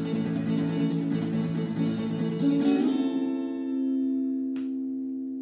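Guitar strummed rapidly, then a final chord struck about three seconds in and left to ring out and slowly fade, closing the song. A brief click sounds as the chord rings.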